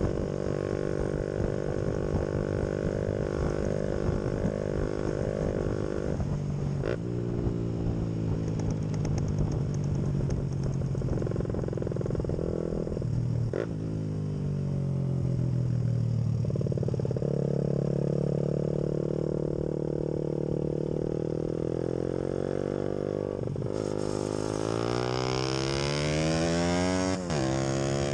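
Motorcycle engine running while riding, heard from the rider's helmet with wind noise on the microphone. Its pitch drops as it slows about seven and again about thirteen seconds in, holds steady, then climbs steeply under hard acceleration near the end, with a brief dip just before the end.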